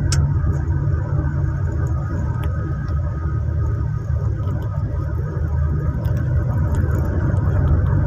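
Steady low rumble of a car's engine and tyres heard inside the cabin, with a click just after the start and a faint thin squeal around the middle.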